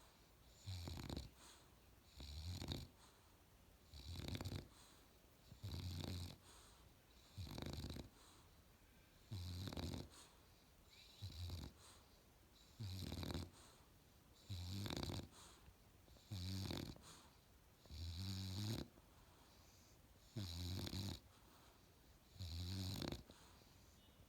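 Australian Bulldog puppy snoring in a steady rhythm, about one snore every two seconds.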